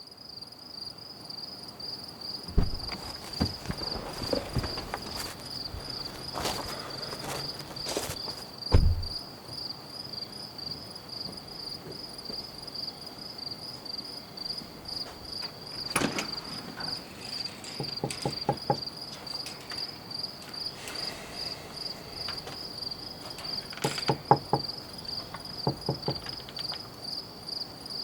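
Crickets chirping steadily in a fast, even high trill, with scattered knocks and clicks over the top.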